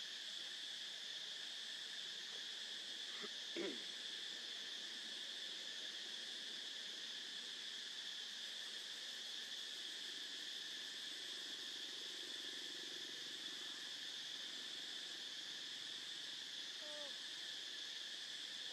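Steady, shrill chorus of insects droning on one high pitch. A single short, sharp sound about three and a half seconds in stands out above it.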